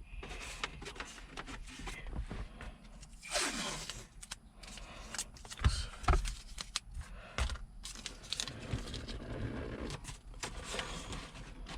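A person climbing out of a car: rustling and scraping of body and clothing against the interior. There is a drawn-out scrape falling in pitch about three seconds in and two dull thumps around six seconds in.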